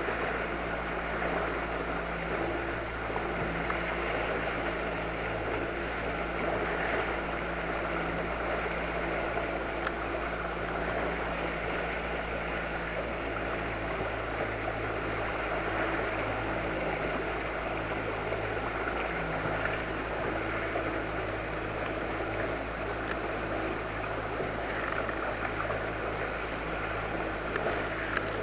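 Outboard motor of an inflatable boat running steadily at slow trolling speed, an even hum, with water rushing past the hull.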